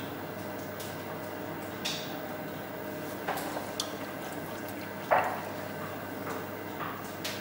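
Electric potter's wheel running with a steady hum, under a few short wet splashes and drips as a hand dips a sponge in a water tub and brings it over the spinning clay bowl; the loudest splash comes about five seconds in.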